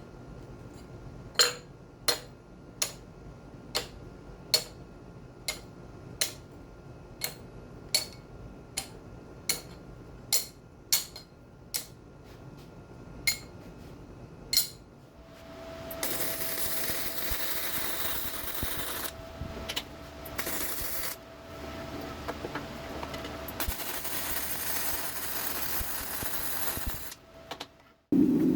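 Light metal-on-metal taps ring out about sixteen times, a little over one a second. About halfway through they give way to a steady hissing rush with a constant tone, which cuts off just before the end.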